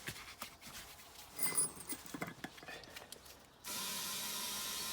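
Light clicks and handling noise as the inflator is fitted to the tyre valve, then, about three and a half seconds in, a steady hiss of air starts suddenly as the freshly plugged tyre begins inflating.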